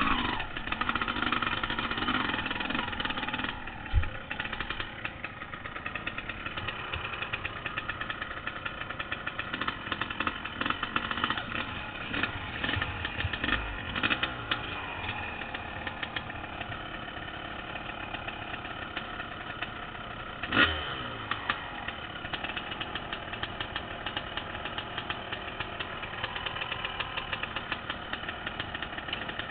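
Honda CR250 two-stroke dirt bike engine running at low trail speed, louder for the first few seconds. A sharp knock comes about four seconds in, and a louder one near the twenty-second mark.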